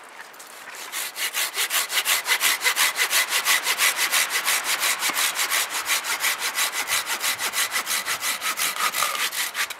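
Silky BigBoy 2000 folding saw cutting through a wooden stick by hand, rasping in quick, even back-and-forth strokes. The sawing starts about a second in and stops just before the end.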